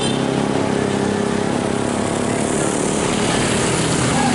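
Diesel truck engine idling steadily. From about two seconds in, a hiss of tyres on wet asphalt rises as a motorcycle approaches and passes close by near the end.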